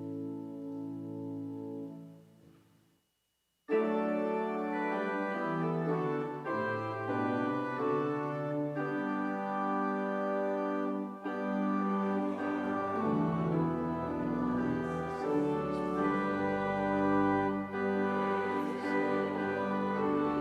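Organ playing offertory music. A held chord fades out a couple of seconds in, and after a brief silent gap a fuller passage starts with moving chords; deep bass notes join about halfway through.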